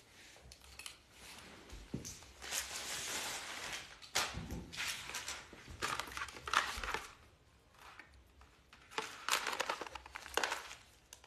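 Paper and cardboard jewelry packaging being handled and crinkled as it is opened, rustling on and off in several stretches.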